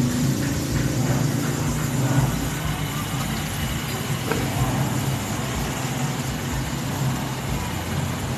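A motor vehicle engine running steadily, a low even hum under a constant background noise.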